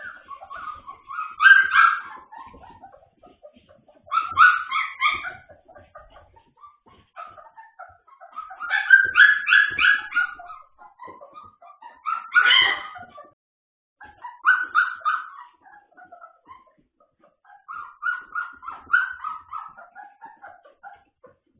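Puppies yipping and whimpering in about six bursts of quick, high-pitched calls, a few seconds apart, with short quiet gaps between.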